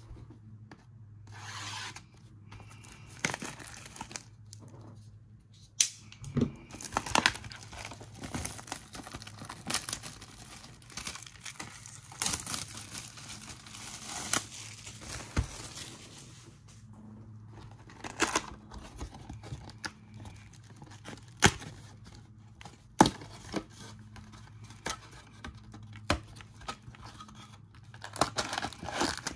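Plastic wrapping being torn off and crinkled as a sealed box of trading cards is unwrapped and opened, with sharp clicks and knocks of the cardboard box being handled. The crinkling runs thickest for about ten seconds in the first half; the loudest clicks come later.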